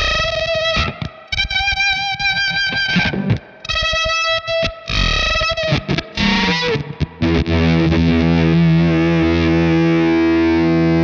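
Electric guitar with low-output Jazzmaster pickups played through a Fender Shields Blender octave-fuzz pedal with its sag control engaged: fuzzed notes, some bent, that cut in and out choppily. About seven seconds in, a held fuzz chord rings out steadily.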